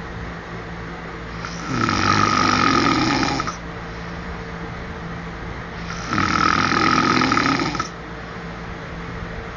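A man snoring: two long, loud snores about four seconds apart, each lasting about two seconds, with quieter breathing between them.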